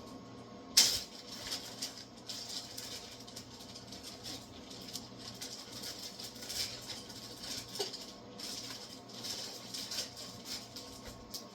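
Pot of water heating on a burner, giving faint irregular crackling and ticking as it comes up toward a boil, with one sharp click about a second in.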